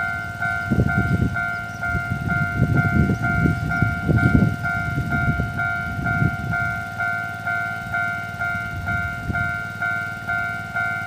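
Level crossing warning bell ringing in a steady rhythm, about two dings a second, each a clear pitched tone. Beneath it a low rumble comes and goes over the first six seconds or so.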